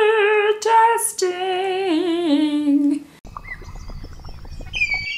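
A woman sings a microphone check, 'one, two, three, testing', in long held notes with a wavering pitch. About three seconds in it cuts off abruptly to a much quieter low hum, with faint high tones coming in near the end.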